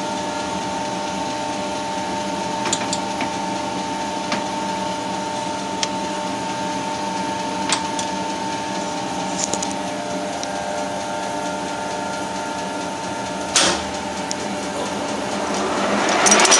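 Colchester Triumph 2000 lathe running, a steady whine from its geared headstock with scattered light clicks. One sharp knock comes about three seconds before the end, and near the end the whine climbs in pitch and grows louder as the spindle speeds up.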